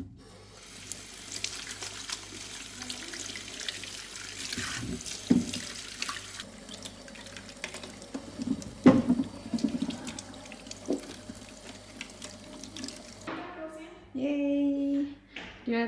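Kitchen tap running into a stainless steel sink while apples are rinsed under it by hand, with a few knocks of apples against the sink. The water stops about thirteen seconds in, and a short vocal sound from a person follows near the end.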